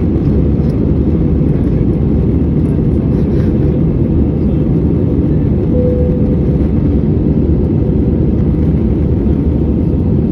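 Steady low cabin roar of an Airbus A320-216's CFM56 jet engines and airflow, heard inside the passenger cabin from a window seat by the wing in flight. A brief low tone sounds about six seconds in.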